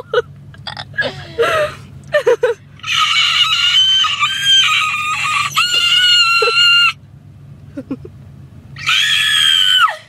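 A girl's voice making a shrill, very high-pitched screech like nails on a chalkboard, held for about four seconds and then given again briefly near the end. Short sliding squeaks come before it in the first couple of seconds.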